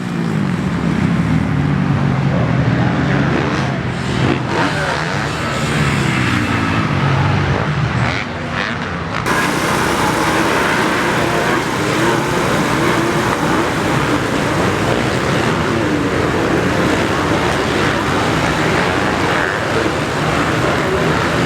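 Motocross bike engines revving, their pitch rising and falling. About nine seconds in, the sound cuts abruptly to a denser, noisier steady engine sound.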